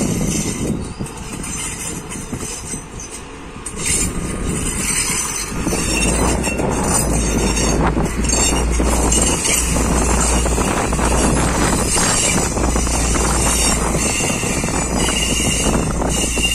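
Diesel multiple unit built by CSR passing close by, its diesel engines running and wheels rolling on the rails. It grows louder and deeper about five seconds in as the railcars draw alongside.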